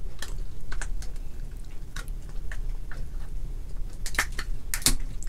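Cooked crab shell being snipped with kitchen scissors and cracked apart by hand: scattered short, sharp clicks and cracks, a few louder ones near the end.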